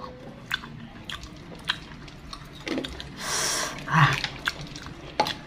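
Close-up chewing and biting of sauce-coated, wonton-skin-wrapped sausage, with scattered short mouth clicks. About three seconds in there is a breathy exhale, then a brief hum.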